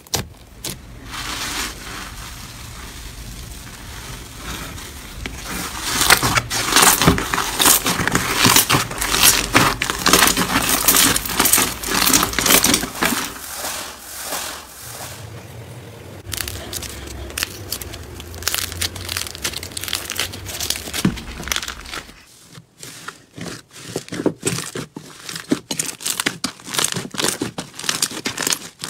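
Hands kneading, stretching and squeezing slime: dense crackling, popping and squelching clicks. Partway through comes a bead-filled slime pressed by hand, which gives a crunchier crackle.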